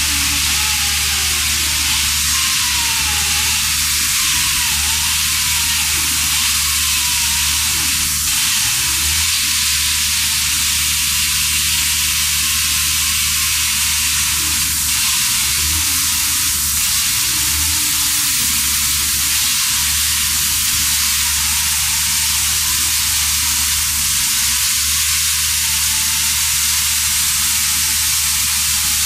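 CS Unitec pneumatic concrete chain saw running in a cut through a concrete block, a loud, steady hissing noise that holds even throughout.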